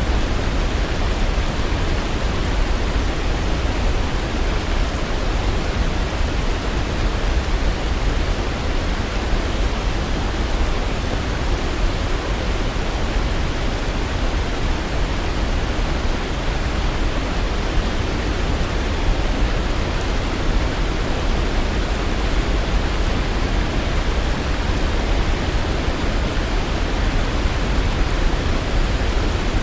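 Waterfall: falling water making a steady, even rush, heaviest in the low end, with no breaks or changes.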